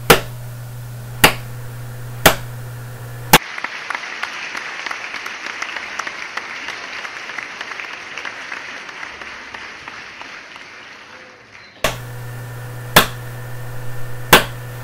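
Slow single hand claps, about one a second, then about eight seconds of dense applause that slowly fades out, then a couple more single claps.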